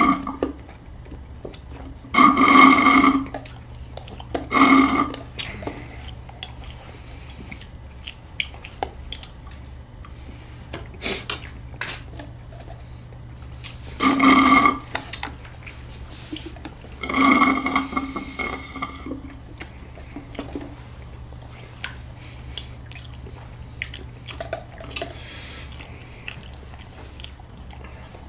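Loud slurps from a plastic cup, five of them: at the start and at about 2, 5, 14 and 17 seconds in. Between them come faint clicks from eating and handling cups.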